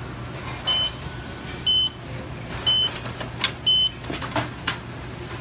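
An electronic beeper sounds four short, high beeps about a second apart over a steady low hum. Light clicks and clinks of metal kitchenware, such as a ladle, come near the end.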